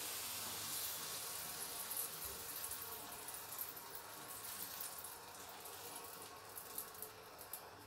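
Yeast-risen pancake batter (mkhanfar) sizzling in a hot oiled frying pan just after it is poured in: a steady high hiss that slowly fades as the batter sets.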